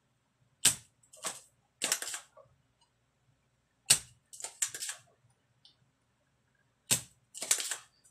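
Spring-loaded desoldering pump firing three times, about three seconds apart, sucking molten solder off the circuit board's pads. Each sharp snap of the released plunger is followed by a rougher, noisier clatter as the pump is re-cocked.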